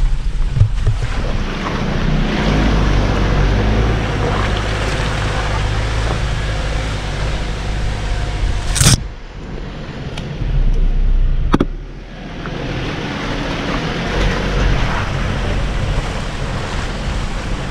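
Jeep Wrangler JL Rubicon crawling along a muddy trail in four-wheel drive: the engine runs steadily at low revs under tyre and wind noise. Two sharp knocks, one about nine seconds in and another a few seconds later.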